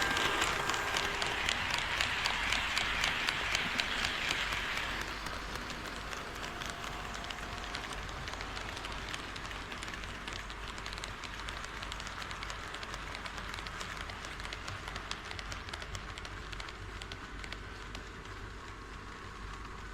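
HO-scale model train running on KATO Unitrack, its wheels clicking rapidly over the rail joints with a steady rolling noise. The clicking is loudest for the first five seconds or so, then carries on steadier and a little quieter.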